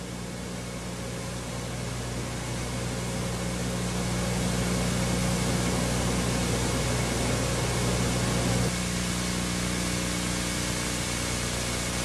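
Steady hiss with a low electrical hum, the background noise of an old analogue videotape recording. It grows louder over the first few seconds and drops a little about nine seconds in.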